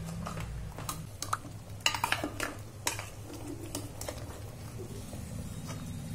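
Metal ladle clinking and scraping against the inside of an aluminium pressure cooker while stirring masala-coated beef shank and marrow bones. There are several sharp clinks, the loudest about two seconds in, over a steady low hum.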